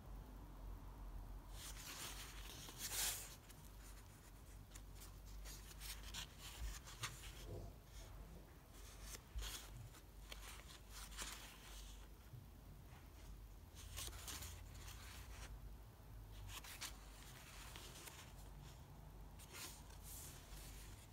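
Pages of a handmade-paper sketchbook being turned and pressed flat by hand: soft papery rustles every few seconds, the loudest about three seconds in.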